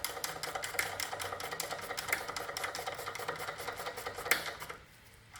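Socket ratchet clicking rapidly as it runs down the top nut of a new anti-roll bar drop link, with one sharper click just before it stops, about four and a half seconds in.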